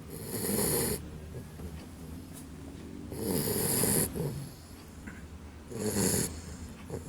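Small puppy snoring loudly in its sleep: three loud snores about two and a half to three seconds apart, with quieter breathing between them.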